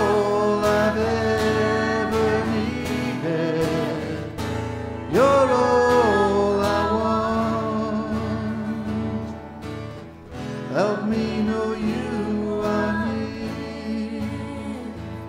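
A woman singing long held phrases over a strummed acoustic guitar, three phrases in all, each beginning with a bend in pitch; it grows quieter near the end.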